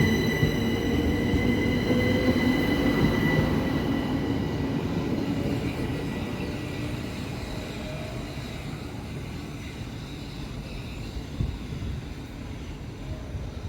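Electric commuter train pulling away on the rails, its rumble and a set of high steady whining tones slowly dropping in pitch and fading as it recedes. A short knock comes near the end.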